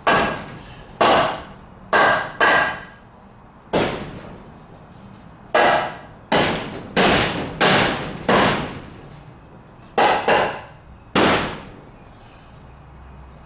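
Hammer driving nails into a wooden brace in the roof rafters: about a dozen sharp blows in irregular groups of two or three, each ringing briefly.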